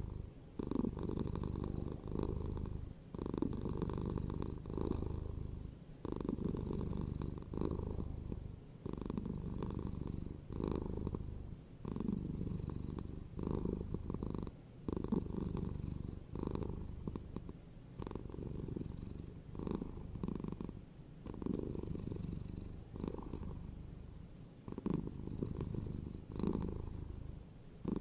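Domestic cat purring steadily, the purr swelling and fading with each breath about once a second.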